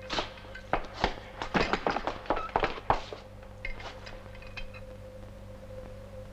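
A quick, irregular run of knocks, thuds and clinks of household goods being tossed and dropped during looting, thinning after about three seconds to a few light clicks. A faint steady hum of the old film soundtrack lies under it.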